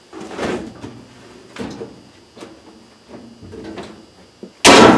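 Wet laundry being pulled by hand out of a dryer drum: cloth rustling and soft slaps in a few separate handfuls, then a single loud thump near the end.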